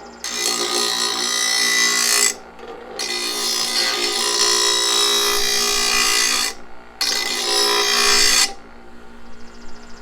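Harbor Freight bench grinder running with a steady motor hum while metal is pressed against the grinding wheel three times, giving three loud rasping grinding spells of about two, three and a half, and one and a half seconds.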